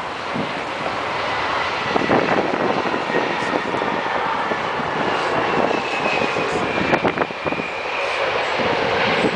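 Airbus A320 airliner landing, its IAE V2500 turbofan engines giving a broad roar that builds over the first couple of seconds. A thin whine slides slightly lower in pitch midway, with scattered clicks over it.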